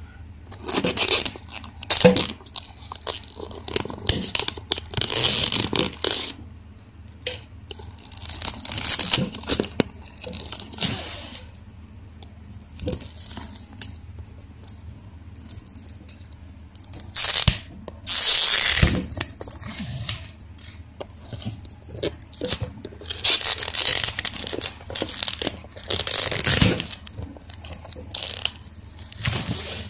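Plastic shrink-wrap on a cardboard box being pierced with a ballpoint pen and torn off, crinkling and tearing in several irregular bursts with short pauses between.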